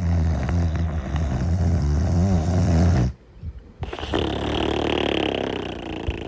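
Cartoon dog snoring in its sleep: a long, low, pitched snore for about three seconds, a short pause, then a second, breathier snore with a hiss in it.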